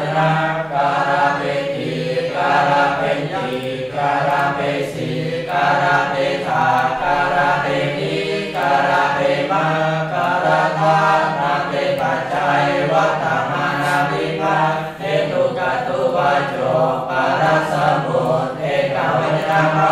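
Several voices reciting Pali verb forms together in a steady, even chant, without pause.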